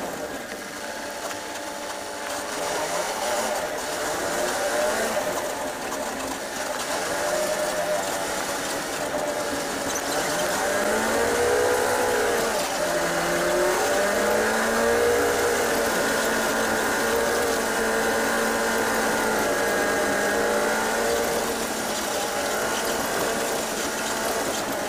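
City bus's diesel engine and drivetrain heard from inside the cabin, its pitch rising and falling several times as the bus accelerates and eases off, over steady road noise from tyres on a wet road.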